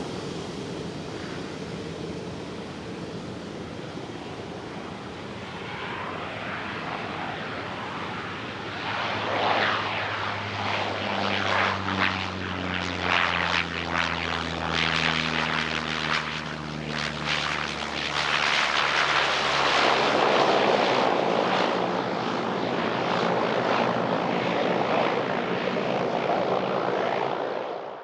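Business jet's engines at takeoff power, building up and growing louder and crackly as the aircraft passes, with a low hum that falls in pitch.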